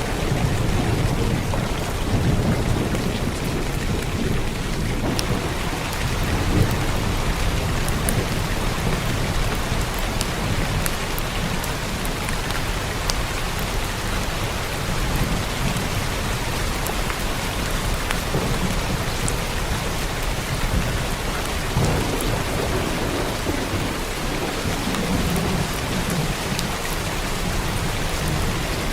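Steady heavy rain pattering on a roof, with low thunder rumbling underneath that swells and fades, strongest near the start and again past the middle.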